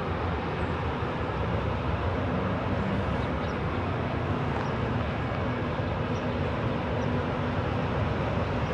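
Steady low rumble with an engine drone, typical of a diesel freight locomotive running out of sight.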